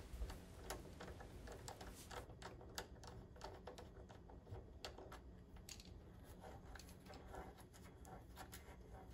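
Faint, irregular clicks and scrapes of a Phillips screwdriver turning screws out of the top of a pinball machine's back box.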